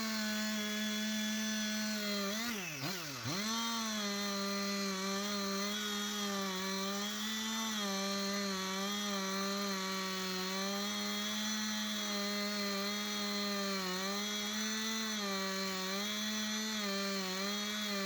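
Husqvarna 371 XP two-stroke chainsaw running at full throttle while cutting through wood. About two to three seconds in, the revs drop and pick back up, then the engine holds high with small dips under the load of the cut.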